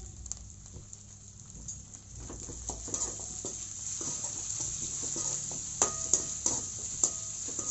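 Onions, green chillies and freshly added curry leaves sizzling in hot oil in a metal kadai while a spatula stirs and scrapes through them. Near the end there are a few sharp clinks of the spatula against the pan, each ringing briefly.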